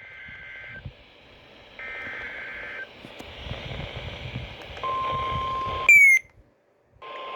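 NOAA Weather Radio alert heard through a radio receiver over steady static hiss. It opens with two roughly one-second bursts of two-tone SAME data header warble, then a steady single alert tone near 1 kHz (the 1050 Hz warning alarm tone) starts. Near six seconds the tone is broken by a short, loud falling chirp and half a second of silence, then it resumes.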